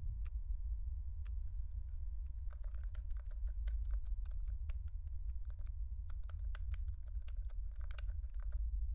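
Typing on a laptop keyboard: after a couple of single clicks, a quick run of key clicks starts about two and a half seconds in and stops just before the end, over a steady low hum.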